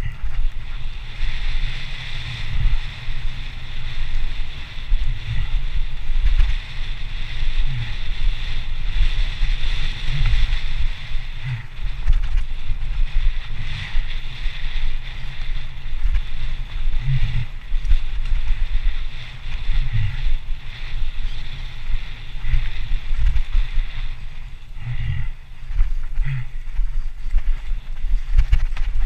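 Mountain bike riding fast down a dirt trail, with wind buffeting the handlebar camera's microphone. Irregular knocks and rattles come from the bike going over roots and bumps, over a steady high whir.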